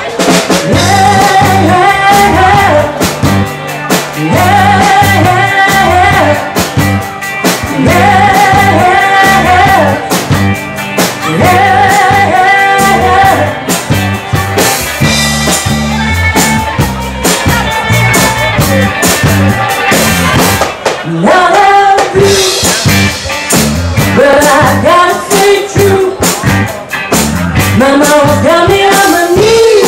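Live rock band playing loudly: electric guitars, bass and drum kit under a woman's lead vocal, which comes in repeated sung phrases over a steady beat.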